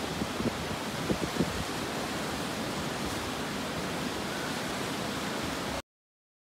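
River water rushing, a steady even hiss of flowing water that cuts off suddenly near the end.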